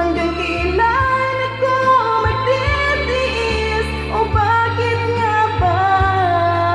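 A woman singing a Tagalog love ballad into a handheld microphone over a music backing track, holding long notes that step from pitch to pitch above a changing bass line.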